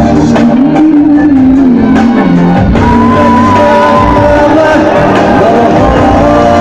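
Loud music with a sung melody playing over a PA system in a large hall.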